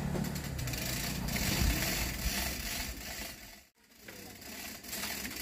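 Scraping, rubbing and knocking of loudspeaker cabinets being slid and stacked by hand on a metal-and-wood truck platform. The sound cuts out briefly about two-thirds of the way in.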